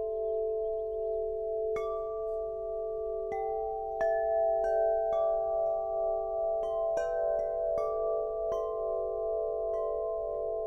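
Wind River Corinthian Bells 56-inch wind chime, its long tubes tuned to the scale of G, ringing as the round central striker hits them at irregular intervals about once a second. Deep tones overlap and sustain under each new strike.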